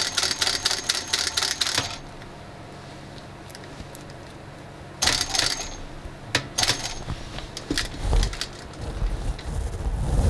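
JUKI DSU-142 cylinder-bed industrial sewing machine stitching a leather bag handle in short runs: a rapid, even clatter of stitches for about two seconds, then a brief second run about five seconds in and a few single stitches. Low thumps of the leather being handled come near the end.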